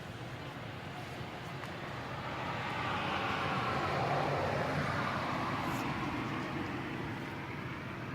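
A vehicle passing by: its noise swells over about three seconds, then fades away.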